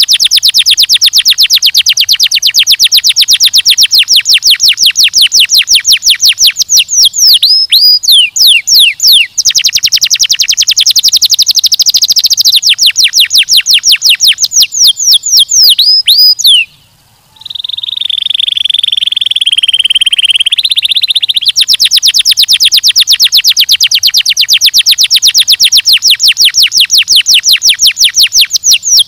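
Domestic canary singing: long, very fast trills of repeated high notes, broken by a few falling whistled notes. About two-thirds of the way through it stops for a moment, holds a buzzy note for a few seconds, then goes back into the fast trills.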